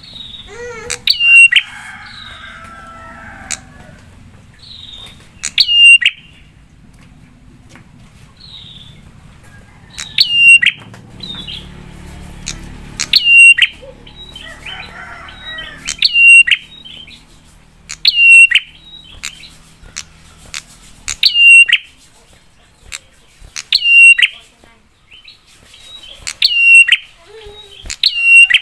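Prinia (prenjak) giving a loud, sharp call note that drops quickly in pitch, repeated every two to three seconds; softer twittering comes between the calls.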